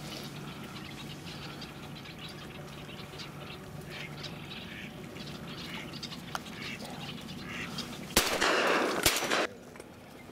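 Ducks quacking in short, repeated calls over a steady low hum. About eight seconds in comes a loud, noisy burst with two sharp cracks roughly a second apart, ending abruptly.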